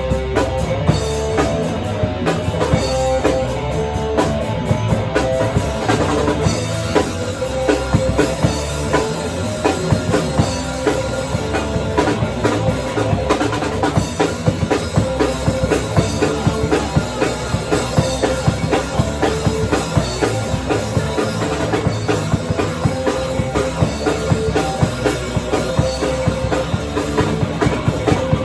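Live band playing loud rock music, with a drum kit hitting fast and dense throughout.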